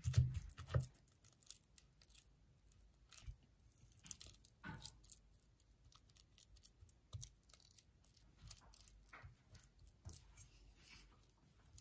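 A spatula mashing and stirring soft cooked pumpkin and sweet potato mixed with flour in a rice cooker's inner pot: faint, irregular scrapes, squishes and light clicks against the pot.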